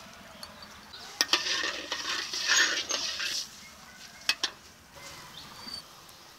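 A flat spatula stirring spiced water in a brass kadai, scraping for a couple of seconds with sharp clinks against the metal pan about a second in and again past four seconds.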